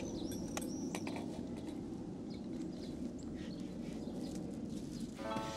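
Birds chirping in short, high calls over a steady low outdoor background. A sustained musical chord comes in near the end.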